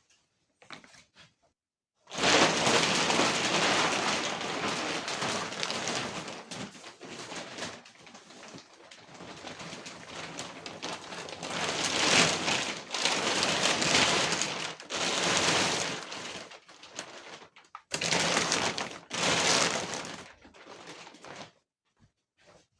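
Thick plastic vacuum packaging crinkling and rustling as it is torn and pulled off a foam mattress by hand. It starts about two seconds in and comes in uneven loud surges, stopping shortly before the end.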